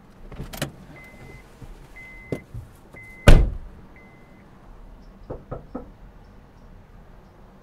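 A car door unlatches, and the door-open warning chime beeps once a second, four times. The car door then slams shut with a heavy thud, the loudest sound. Later, three quick knocks on a wooden door.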